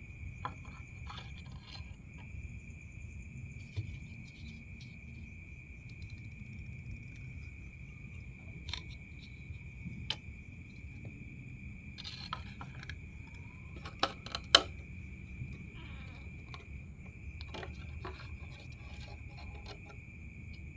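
Scattered clicks and knocks of hands working on a refrigerator compressor, with two loud sharp knocks about 14 seconds in, over a steady high-pitched whine and a low rumble.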